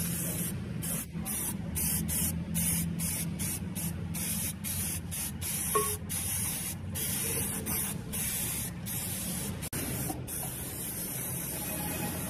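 Aerosol spray-paint can hissing in many short bursts with brief pauses between them, then spraying in one steady stream for the last couple of seconds.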